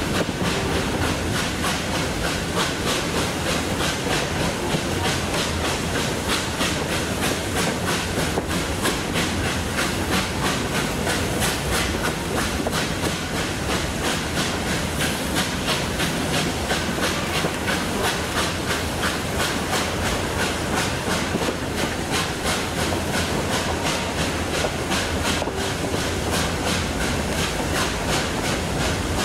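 Steam-hauled heritage train running steadily, with wheels clacking in a regular rhythm over the rails and steam hissing.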